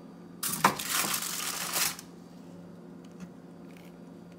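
Kitchen handling noise from metal tongs moving meatballs: a rustling, scraping sound of about a second and a half with a click near its start, over a faint steady low hum.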